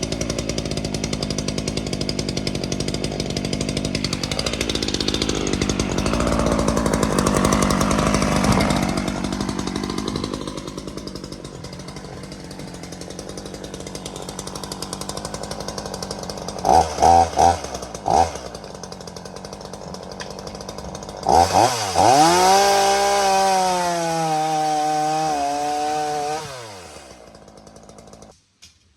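Chainsaw cutting through a softwood log: the engine runs loud under load with a wavering pitch for about the first ten seconds. After a quieter stretch it is blipped a few times, revved once more, and then stops near the end.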